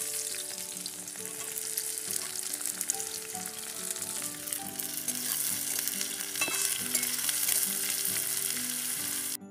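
Sliced onions sizzling and crackling as they fry in hot mustard oil in a metal kadhai, stirred with a metal spatula; the sizzle cuts off suddenly near the end.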